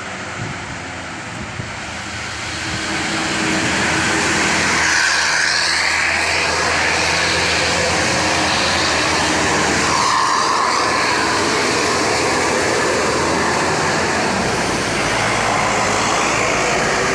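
A large bus running past at close range. Its steady engine and road noise grows louder about three seconds in and stays loud.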